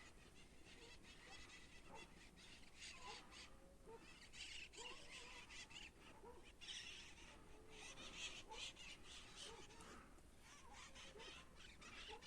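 Faint short animal calls, repeating every second or so, over a soft crackling hiss.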